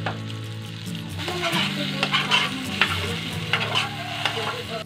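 Egg-battered eggplant sizzling as it fries in oil in a stone-coated nonstick pan. From about a second in, a spoon scrapes and clicks against the pan as the pieces are lifted and turned.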